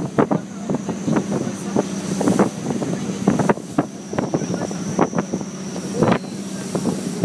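Wind buffeting the microphone in frequent hard gusts over the steady hum of a boat's engine, with rough water churning along the hull.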